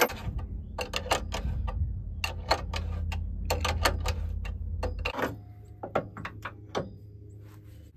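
Irregular metallic clicks and clinks of truck front-suspension parts (steering knuckle, control arm, ball joint) being handled and fitted by hand, over a low steady rumble that stops about five seconds in.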